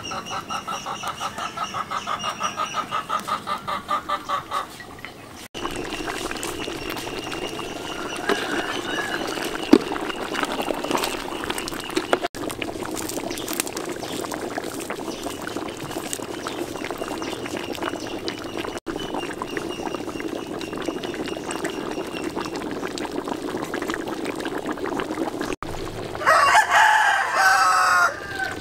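Chickens clucking, then a rooster crowing once, loud, near the end. Under them runs a steady low hum.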